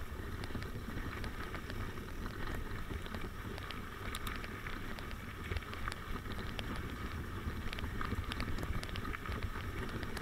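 Mountain bike rolling over a dirt and gravel trail: tyre noise with scattered sharp clicks and rattles from stones and the bike, over a steady wind rumble on the microphone.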